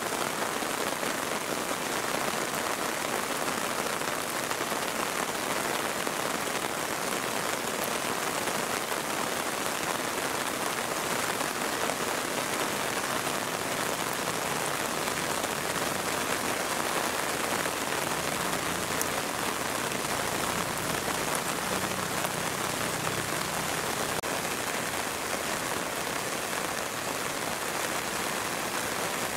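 Steady heavy rain falling, an even hiss of drops on hard surfaces and water.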